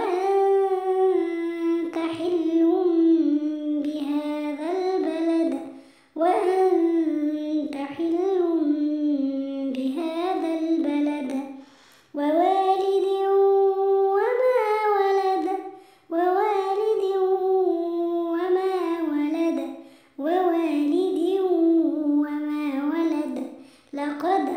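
A child's voice chanting Quran recitation in melodic tajweed style, in phrases of about four seconds with short breaths between.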